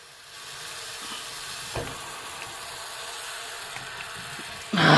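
Water hissing steadily through a water heater drain valve that will not shut off, with a short, much louder rush of noise near the end.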